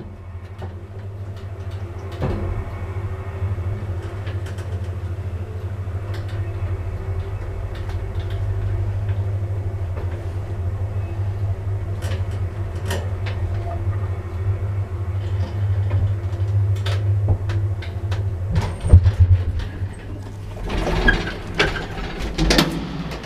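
An old passenger lift travelling: a steady low motor hum with scattered clicks and knocks from the car, starting about two seconds in, on a lift its rider finds in a poor state. Near the end the hum stops and a louder clatter follows as the car halts and its door is worked.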